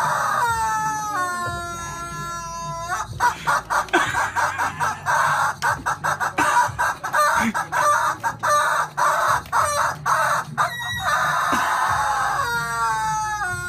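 A chicken crowing in a drawn-out call, then clucking rapidly for several seconds, then starting another long crow near the end.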